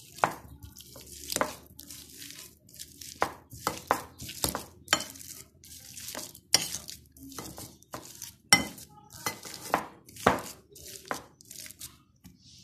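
Potato masher mashing boiled potatoes in a glass bowl: irregular sharp clinks of the masher against the bowl, roughly two a second.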